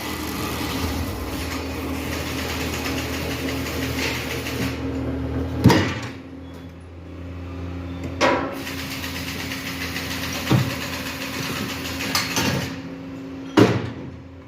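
Tyre changer machine running: a steady motor hum with a hiss that fades out after about five seconds, then five sharp knocks spaced a couple of seconds apart as the machine works the tyre off its rim.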